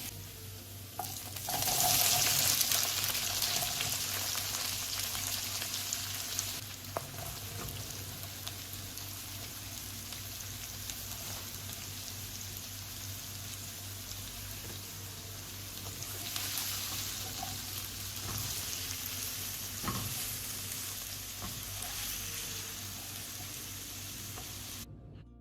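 Food sizzling in a hot pan as it is stir-fried, the sizzle surging loudest about two seconds in and again later, with a couple of sharp clicks from the utensil against the pan.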